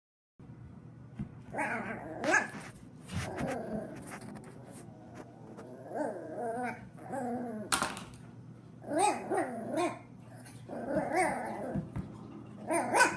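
A puppy growling and yapping in short bouts every couple of seconds, with a few sharper barks.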